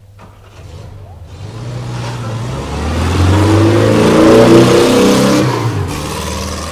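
Engine revving sound effect: a low engine note builds, peaks about four and a half seconds in, then dies away.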